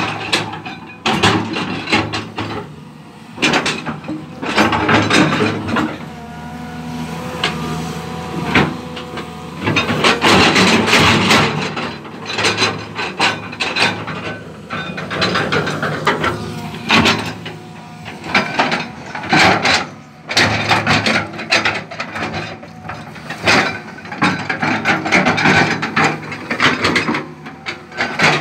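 Tracked excavator working on rocky ground: its diesel engine runs steadily under load while the steel tracks and bucket clank and knock against rock and soil many times over, with a few brief squealing tones from the machine.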